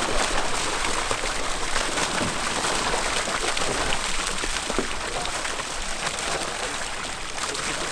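Water and live fish pouring down a stocking chute and splashing steadily into the surface of a lake, a continuous rushing splatter that eases slightly near the end.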